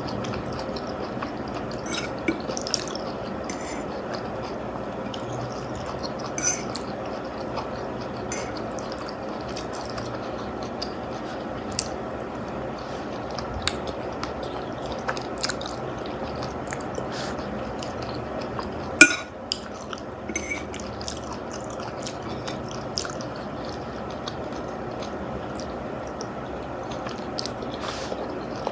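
Eating spaghetti and meatballs close to the microphone: wet chewing and mouth sounds, with scattered short clicks of a utensil on the dish, one sharper knock near two-thirds of the way through, over a steady background noise.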